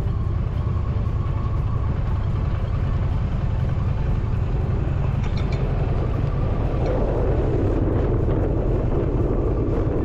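Indian Challenger motorcycle's V-twin engine running steadily while riding, with heavy wind noise on the microphone.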